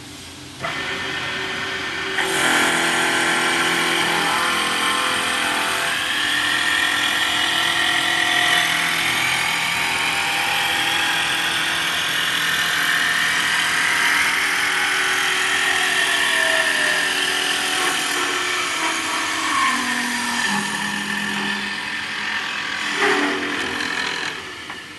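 Wood copy lathe turning a baseball bat from a wooden blank: the machine starts up about half a second in, and about two seconds in the cutters bite into the spinning wood with a loud, steady cutting noise and a whine that shifts in pitch. There is a sharp knock near the end, and then the cutting dies away.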